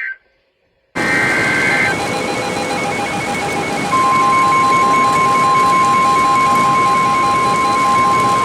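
Weather radio alert over a hiss of radio static: a brief warbling burst of alert data tones, then a loud steady single-pitch warning alarm tone starting about four seconds in, with faint rapid beeping underneath.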